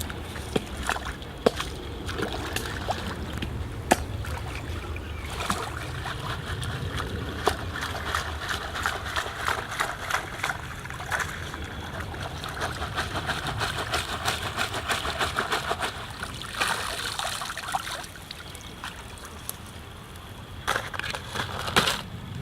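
Water sloshing and trickling, with many sharp clicks and knocks throughout.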